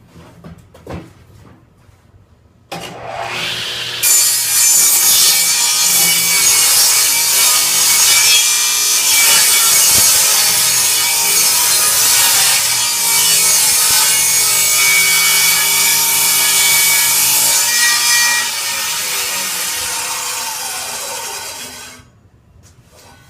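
Table saw switched on, ripping a board's edge along the fence in a light jointing pass of about half a blade width, for some fourteen seconds. It is then switched off, and the blade winds down with a falling whine and stops near the end. A few light knocks of handling come before it starts.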